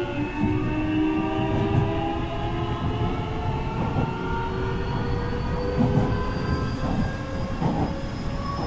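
Nankai electric commuter train running on its rails, heard from the front cab: a steady rumble of wheels on track under a whine of several tones that slowly rises in pitch.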